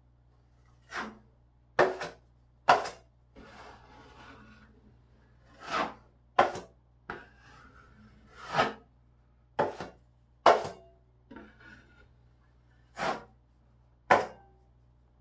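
Hand tool scraping or rubbing across a drywall patch in about a dozen short, irregular strokes.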